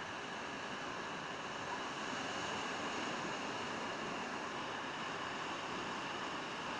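Steady wash of sea surf breaking on a rocky shore.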